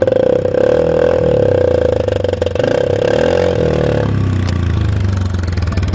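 A quad's single-cylinder engine running, with a rough buzzing upper note that drops away about four seconds in, leaving the lower steady running note.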